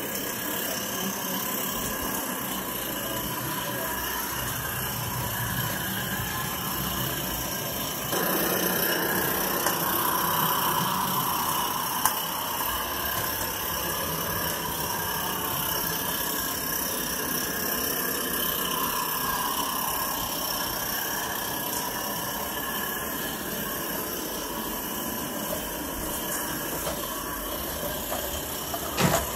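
Small Regner Vincent live-steam locomotive running under steam with a steady hiss, its burner and steam supply turned up to haul a long train of wagons rolling over the track. The sound grows louder about eight seconds in, with a sharp click near twelve seconds and a knock near the end.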